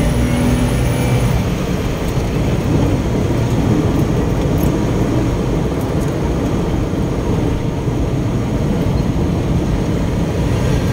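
Steady road and engine noise inside a moving car: an even rumble with a hiss of tyres on the road.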